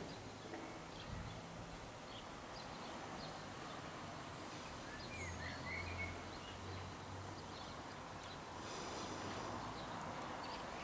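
Quiet residential outdoor ambience: a steady soft hush with scattered short bird chirps throughout and a brief run of chirps about halfway through. A low hum rises for a couple of seconds around the middle.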